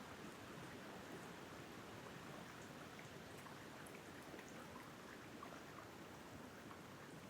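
Wind blowing through tree tops: a faint, steady rushing, with scattered light ticks.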